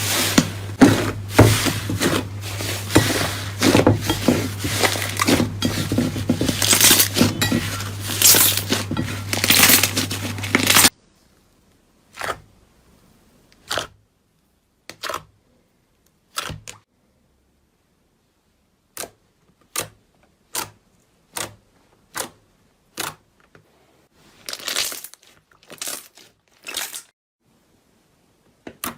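Slime being worked by hand, a dense run of crackling and popping over a steady low hum. About eleven seconds in it cuts off suddenly, and single sharp clicks and pops follow, roughly one a second, with a short cluster of them later on.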